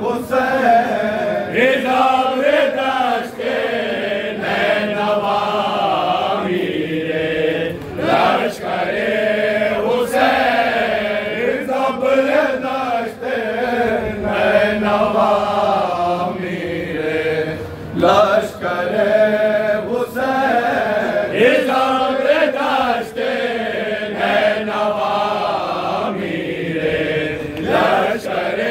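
Men reciting an Urdu noha (Shia lament) together, a lead voice with a group chanting the melody in unison as it rises and falls. Short thumps are scattered through it.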